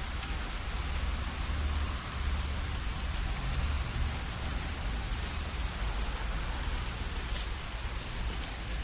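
Steady summer thunderstorm rain falling on the ground and surfaces around, with a low rumble underneath. Now and then a drop falls from the rowan leaves overhead and strikes close by with a sharp tap, the clearest near the end.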